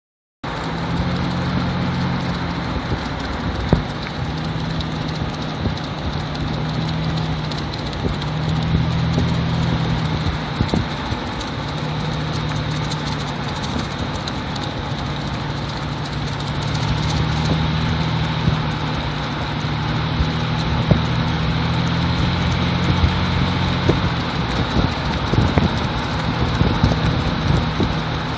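A vehicle's engine running at steady road speed, about 35 mph, with tyre and wind noise. Its low hum wavers slightly with the throttle, and there are a couple of faint knocks from bumps in the road.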